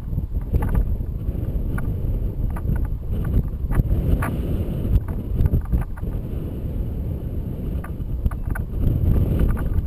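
Wind buffeting the microphone of a camera towed behind a paraglider in flight: a dense, fluctuating low rumble with scattered light clicks.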